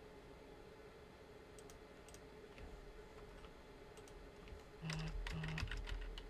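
Computer keyboard typing: a few scattered key clicks, then a quick run of keystrokes about five seconds in as an IP address is typed.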